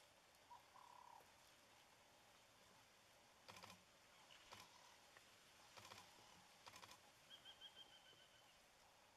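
Quiet bush with faint sounds: several brief clusters of sharp clicks through the middle, and a bird calling with a quick run of about eight short, high notes near the end.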